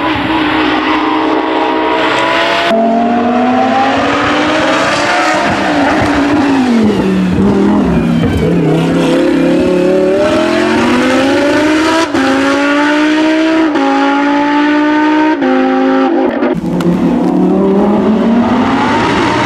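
Lamborghini Huracán Super Trofeo Evo 2 race car's V10 engine at full throttle. Its note climbs and then drops sharply at each upshift, falls away for a while as the car slows, and climbs again through several quick upshifts near the end.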